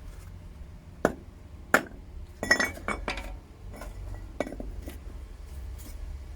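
Hard metal clinks and knocks from moulds and tools being handled during copper casting, half a dozen separate strikes, over a steady low rumble.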